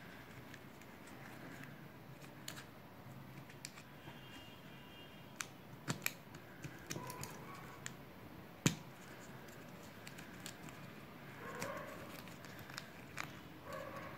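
Faint crinkling of paper-cup strips being folded up by hand, with a few sharp ticks as the paper creases, the loudest about two-thirds of the way in.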